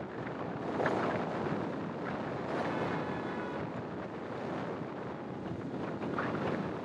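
Wind buffeting the microphone of a camera mounted outside a moving car, over a steady rush of road and traffic noise.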